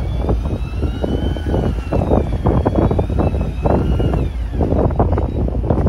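Fishing boat's engine running steadily, with wind buffeting the microphone in irregular gusts. A faint whine wavers slowly up and down in pitch above the engine.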